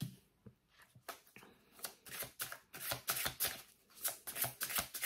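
A deck of oracle cards being shuffled: a run of quick papery flicks and taps, sparse at first and coming thick and fast from about two seconds in.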